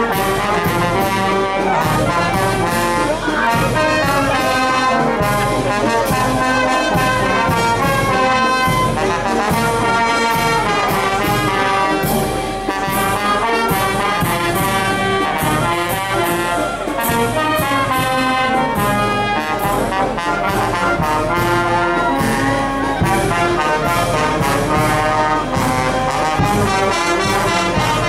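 Oaxacan banda filarmónica, a brass and wind band, playing a melody over a steady percussion beat.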